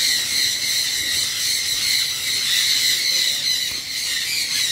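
A flock of Indian ringneck parakeets screeching together in a continuous, high-pitched din.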